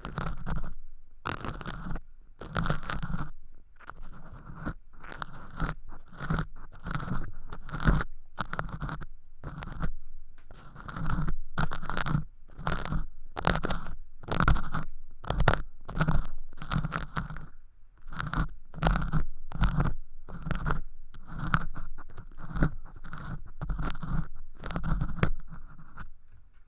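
Ear pick scraping and crunching thin, crispy sawdust-like flakes in the ear canal of a homemade binaural microphone. It comes in repeated short strokes, about one a second and sometimes two close together.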